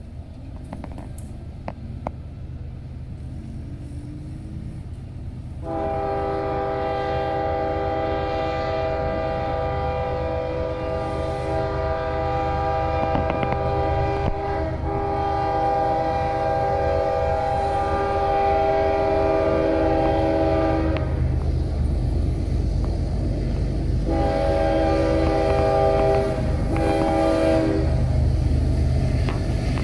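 Approaching diesel freight train led by a GE ES44AC locomotive sounding its multi-note air horn: one long blast starting about six seconds in, then two shorter blasts near the end. Beneath the horn runs a low diesel engine rumble that grows louder as the locomotives draw near.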